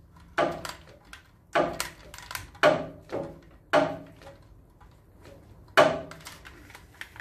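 A series of sharp knocks and clunks, about eight of them at irregular intervals and the loudest near the end, as a Land Rover Series swivel hub housing is swung back and forth by hand on its swivel pin bearings while its shim preload is checked.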